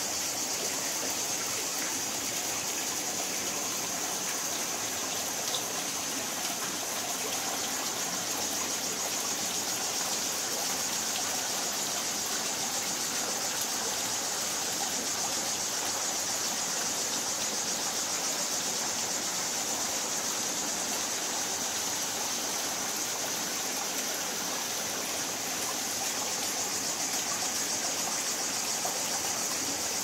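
Mountain stream water running over rocks, with a small cascade spilling between boulders: a steady, unbroken rush.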